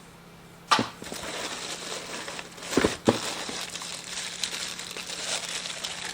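Plastic packaging crinkling and rustling as a vacuum accessory is unwrapped. It starts suddenly under a second in, with a couple of sharper knocks and crackles about three seconds in.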